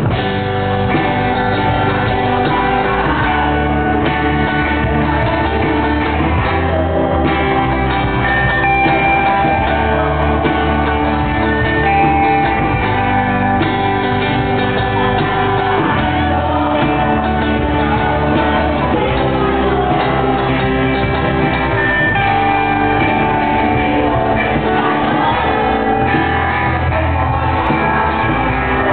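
Live band playing a song, with singing over the instruments. It is loud and continuous.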